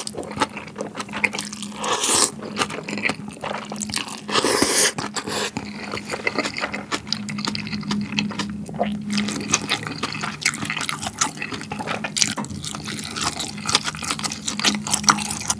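Close-miked slurping of corn and rice noodles in tomato malatang broth, three long slurps in the first five seconds, then steady wet chewing with small clicks.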